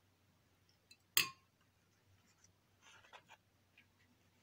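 A spoon spreading mole sauce onto a split bun. There is one sharp tap about a second in, then soft scraping and handling noises.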